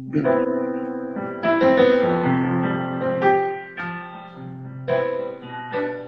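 Solo piano played on a digital keyboard: slow chords, a new one struck about every second and a half and left ringing.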